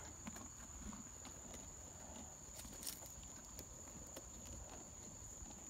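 Faint, scattered hoof steps and shuffling of horses moving about, over a steady high-pitched whine.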